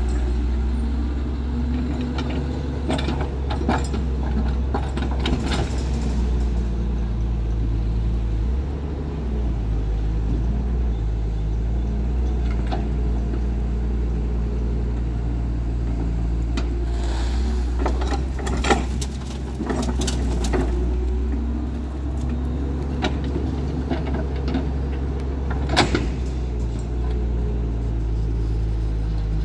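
Dump truck's engine running steadily at a low pitch, with scattered knocks and rattles from the truck's body.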